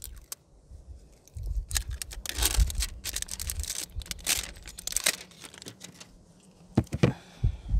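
Cellophane wrapping being torn and crinkled off a small plastic PoE injector: a run of crackling rustles, then a few sharp clicks near the end.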